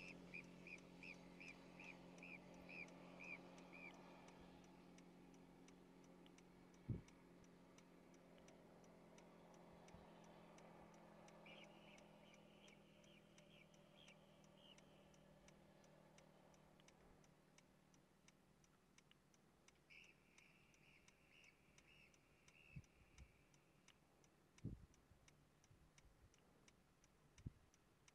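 Faint, high chirping calls of a long-tailed marmot, repeated about two a second, in three bouts: at the start, about twelve seconds in and about twenty seconds in. Faint even ticking runs underneath, with a few soft knocks.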